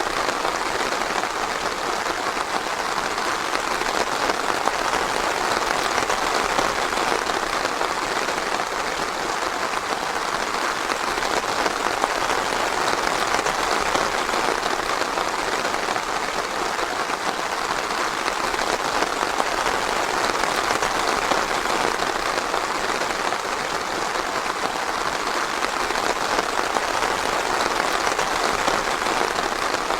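Steady rain falling on forest foliage: an even, unbroken hiss of countless drops, with no thunder.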